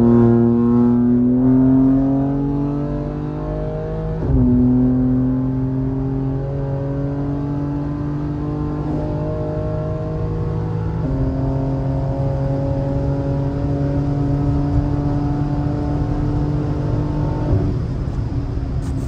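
BMW M3 G80's tuned twin-turbo straight-six pulling hard at high Autobahn speed, heard from inside the cabin. The engine note climbs, drops with an upshift about four seconds in, then climbs slowly again under load and eases off near the end.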